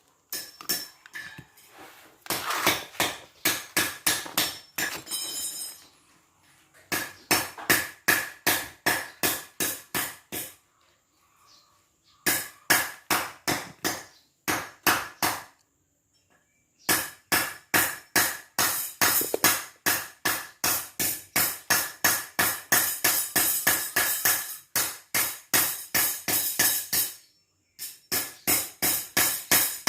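Repeated hammer taps on metal, about three to four a second, in bouts of several seconds broken by short pauses, each tap ringing briefly.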